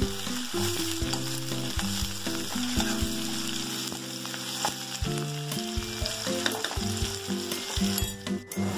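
Chopped onions and curry leaves sizzling as they fry in hot oil in a kadai, being fried toward golden brown. A metal spoon stirs them, with scattered clicks and scrapes against the pan.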